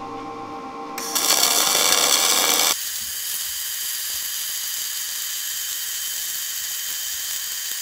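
Wire-feed arc welding with dual shield (gas-shielded flux-cored) wire: the arc strikes about a second in and sizzles loudly for a couple of seconds, then settles to a steadier, thinner hiss.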